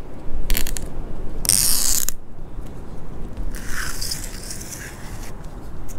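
Red backing liner of double-sided adhesive tape being peeled out from under a plastic rear-window spoiler, a crackling rip in a few bursts: short ones about half a second in, a loud one around two seconds, and a longer, weaker one near the end.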